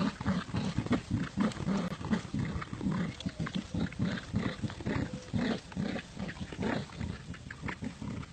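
Dogs growling in play while tugging on a toy: a steady run of short, low growls, about three or four a second.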